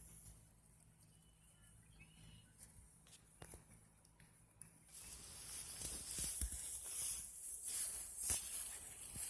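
Rustling and crunching of movement through tall grass, with scattered clicks, starting about halfway through after a quieter first half.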